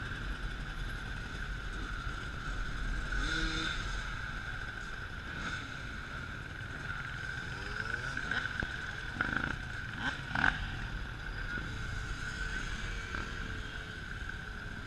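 Dirt bike and other vehicle engines in a slow procession, revving up and down over a steady low rumble. A couple of sharp, louder sounds come about nine to ten seconds in.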